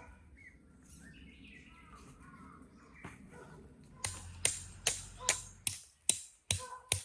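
Birds chirping, then about four seconds in a steady series of sharp strikes begins, about two to three a second, some with a short metallic ring.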